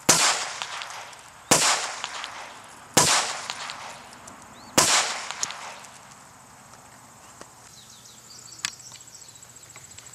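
Four gunshots about a second and a half apart, each trailing off in a long echo.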